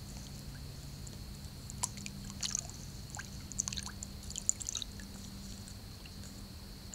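White ibis wading in shallow swamp water close to the microphone: small splashes, drips and clicks as its feet and bill move through the water, bunched between about two and five seconds in.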